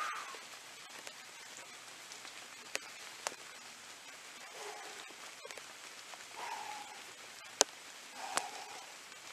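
Rain falling steadily, with sharp drops striking close by now and then, and a few short muffled sounds about halfway through and near the end.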